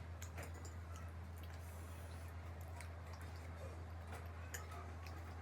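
Faint eating sounds: scattered small clicks and soft wet chewing, over a steady low hum.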